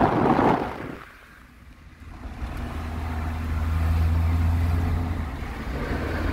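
Wind buffeting the microphone for the first moment, then, after a short lull, a car engine's steady low hum heard from inside the cabin while driving, swelling a little about four seconds in and easing off again.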